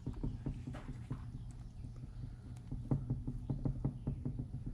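A string of light, irregular knocks and taps, like hard objects being handled on a work table, coming faster after about three seconds, over a steady low hum.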